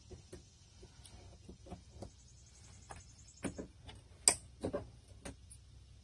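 Steel nippers gripping and pulling old nails out of a wooden door jamb: a run of small clicks and snaps as the jaws bite and the nails come free, the sharpest snap about four seconds in.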